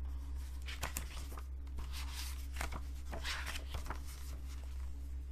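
Pages of a hardbound mediabook being handled and turned: a string of soft papery rustles and light clicks, over a steady low hum.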